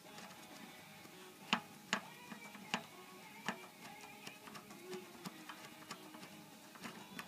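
Scattered light metallic clicks and clinks, a few seconds apart, as bolts on a mini bike's air-intake bracket are worked loose by hand, with faint music underneath.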